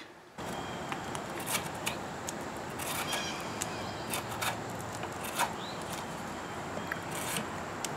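A knife scraping bark off a wooden stick in short, separate strokes over a steady background hiss.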